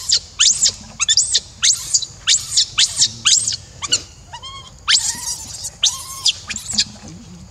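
Infant macaque giving a rapid string of shrill squeals, each rising then falling, about three a second, typical of an infant's distress screaming. About halfway through comes a lower, wavering call, and the squeals stop shortly before the end.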